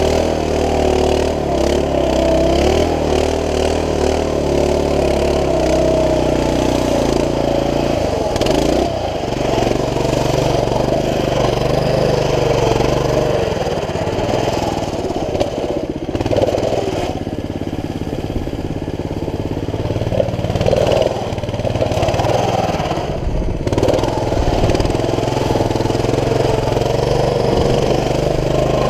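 Baja CT200U mini bike's single-cylinder four-stroke engine running under throttle as the bike rides through mud and water. Its pitch shifts up and down, settling lower about eight seconds in.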